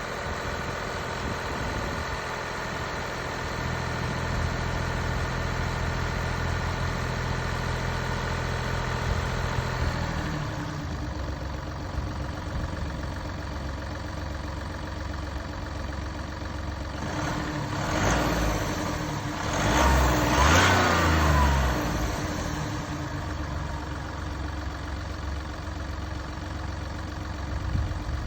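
Mini Cooper D three-cylinder diesel engine running at idle, then revved twice about two-thirds of the way through, the pitch rising and falling each time before it settles back to idle. The car's dual mass flywheel is broken, which a mechanic diagnosed as the cause of its juddering.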